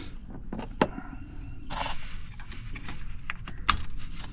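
Scattered light clicks and knocks of tools and parts being handled, with a short rustle about two seconds in.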